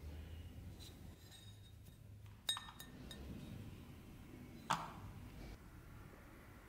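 Rusty iron axe head clinking against the metal hook of a hanging dial scale: two sharp metallic clinks about two seconds apart, each with a brief ring, among a few lighter ticks.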